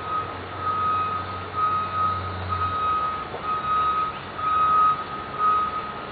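A vehicle's reversing alarm beeping one steady high tone about once a second, over a low engine hum that fades about halfway through. The beeping stops near the end.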